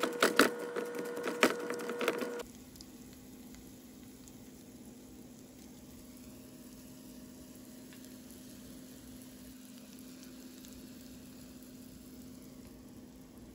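Potato masher squishing through mashed potatoes in a pan, with quick clicks and knocks against the pan for the first two seconds or so. It then cuts off abruptly to a faint steady low hum.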